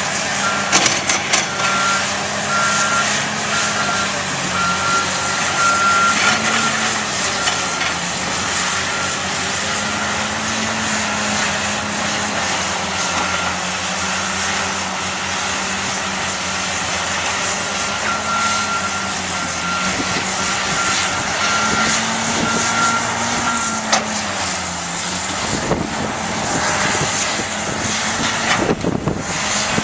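Heavy tracked construction machines' diesel engines running steadily, revving up briefly under load a couple of times. A backup alarm beeps about twice a second, on and off through the stretch.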